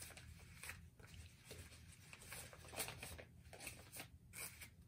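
Faint rustling and crinkling of a ribbon bow being handled, its loops pulled and fluffed out by hand, in short scattered bursts.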